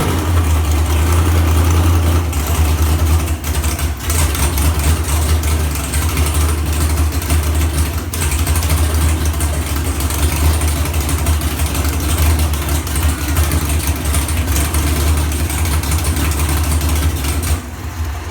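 Cammed American V8 idling with a choppy, uneven idle, a heavy low rumble that wavers throughout, fading out near the end.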